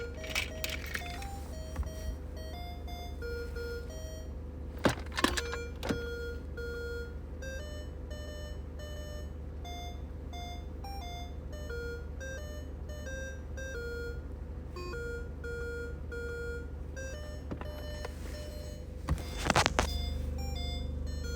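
Vintage bird toy's electronic sound chip playing a simple beeping tune, one note at a time, stepping up and down in pitch, over a steady low hum. A few clicks and knocks come early on, and a louder clattering comes near the end.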